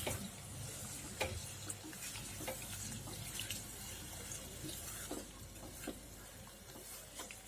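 Curry of pointed gourd and potatoes in a pan, watery and faintly sizzling just after a cup of hot water has been added, with a few light clicks of a spoon or spatula against the pan.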